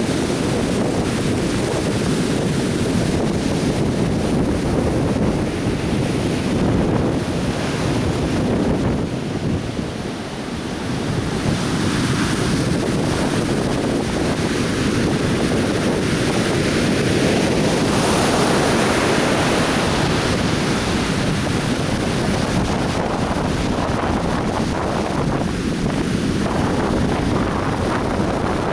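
Atlantic Ocean surf breaking on a beach: a continuous wash of waves that dips briefly about a third of the way in and swells again past the middle, with wind buffeting the microphone.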